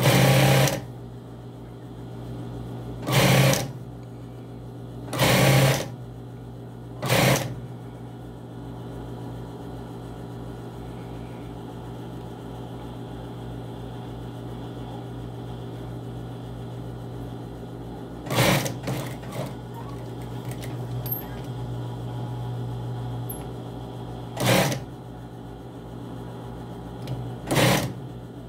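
Industrial sewing machine with its motor humming steadily between stitching, broken by about seven short runs of stitching, each under a second.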